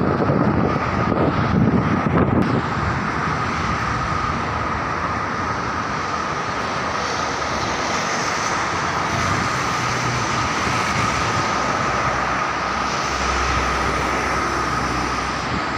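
Steady city road traffic noise from passing cars, with a thin steady whine over it and a low rumble swelling near the end.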